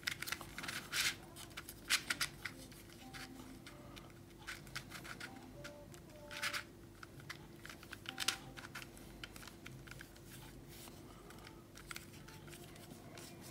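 Plastic cube-in-cube twisty puzzle turned by hand: scattered soft clicks and rattles of its pieces moving, over a faint steady hum.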